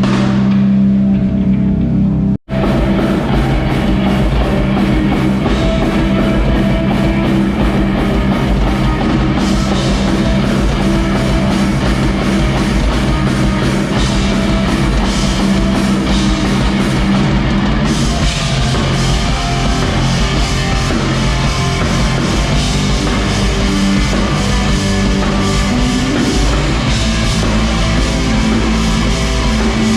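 Live rock band playing loud, with drum kit and electric guitar; the sound drops out for an instant about two seconds in.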